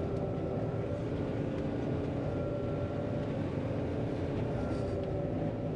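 John Deere 9500 combine running steadily while harvesting soybeans: an even drone from the engine and threshing machinery, with faint steady whining tones over it.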